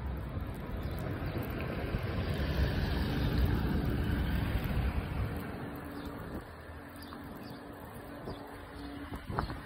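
Outdoor background rumble and hiss that swells over the first few seconds and then eases off, with a brief rising chirp near the end.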